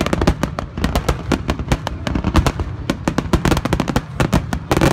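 Aerial fireworks shells bursting in quick succession, a rapid string of sharp bangs and crackles that is thickest a little past three seconds in.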